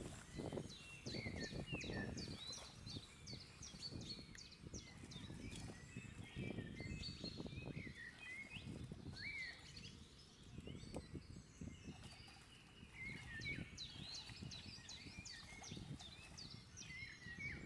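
Many small birds chirping and calling in quick, short gliding notes. Under them is low, irregular sloshing of water as people wade through a shallow weedy pond.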